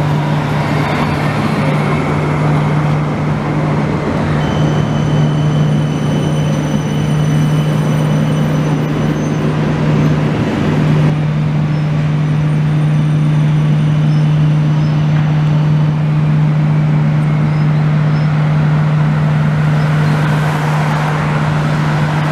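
Street traffic and tram noise, an even rush with a strong steady low hum under it that breaks off briefly about ten seconds in.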